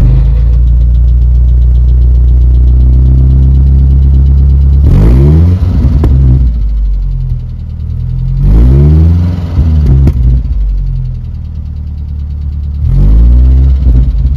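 Humber Hawk Mk V's 2267 cc four-cylinder side-valve engine heard at the tailpipe, idling steadily and blipped three times, the revs rising and falling each time: about a third of the way in, near the middle, and near the end. The engine is running slightly rich.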